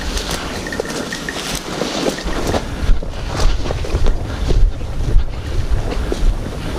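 Wind buffeting the microphone, a low rumble that comes on about two seconds in, over irregular rustling and crunching of dry bracken as someone walks through it.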